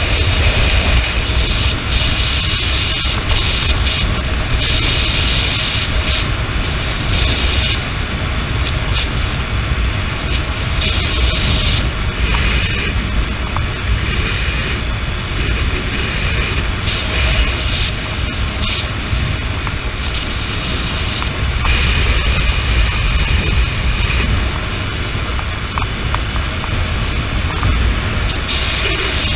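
Wind rushing over the camera microphone on a moving Honda CB motorcycle, with the engine running beneath it. It is a steady loud rumble, with a higher hiss that swells and fades every few seconds.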